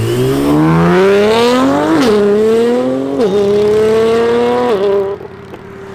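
Nissan GT-R's twin-turbo V6 under hard acceleration away from a standstill. The revs climb steeply and drop back with quick upshifts about two seconds in, just over three seconds in, and near five seconds, before the sound fades as the car pulls away.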